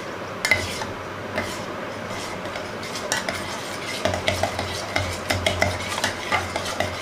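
Spoon whisking a runny mix of instant coffee, sugar and water for dalgona coffee, clicking and scraping against its container. From about four seconds in the strokes become faster and evenly rhythmic, several a second. The mix has too much water in it and is not foaming up.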